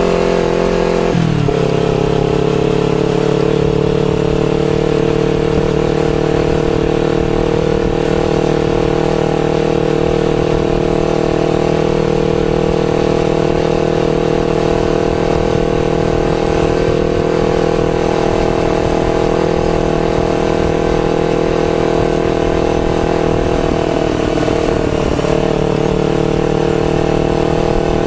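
Motorcycle engine running at a steady cruise, picked up by an action camera's built-in microphone. Its pitch drops sharply about a second in, then holds steady, with a brief waver near the end.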